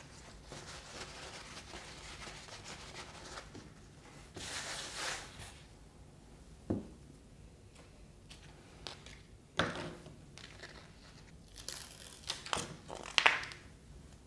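Paper towel rubbing on a small plastic roller as it is wiped clean with alcohol, then crumpling, crinkling and tearing of paper and tape, with a sharp knock on the tabletop partway through.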